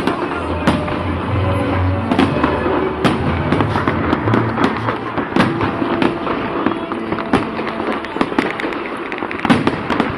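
Fireworks going off: many sharp bangs and crackles at irregular intervals, several a second at times, with music playing underneath in the first half.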